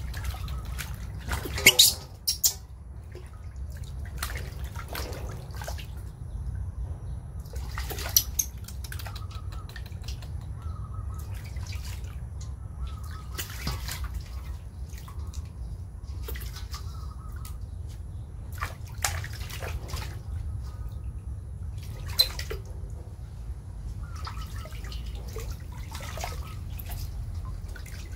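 Water splashing and dripping in a metal basin as a baby monkey is bathed by hand, with irregular louder splashes, the loudest about two seconds in.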